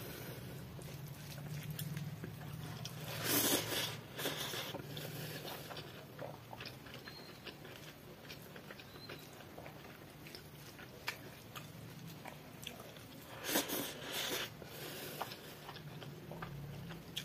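Close-miked eating of chicken biryani by hand: fingers squishing and mixing the rice, and chewing, with many small clicky mouth and food sounds. Two louder noisy bursts come about three seconds in and again near fourteen seconds, over a low steady hum.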